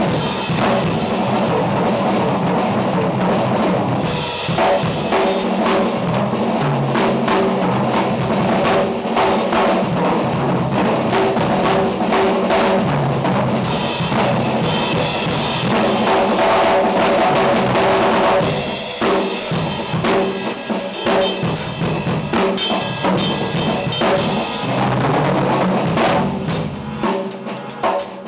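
Acoustic drum kit solo: dense, continuous playing across snare, toms, bass drum and cymbals. It eases off into lighter, quieter strokes near the end.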